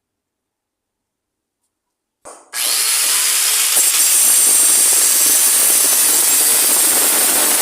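Silence, then about two and a half seconds in an electric angle grinder's disc bites into the workpiece with a loud, steady, hissing grind.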